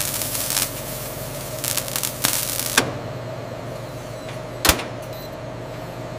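Industrial cutting and engraving machine running: a steady hum with rapid, irregular crackling and hissing bursts over the first three seconds. After that the hum continues alone, with one sharp click about three-quarters of the way in.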